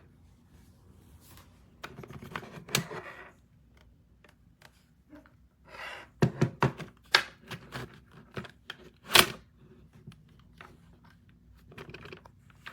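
Irregular plastic clicks and knocks from handling a Fujifilm Instax Mini 12 instant camera, in three clusters, the sharpest about nine seconds in.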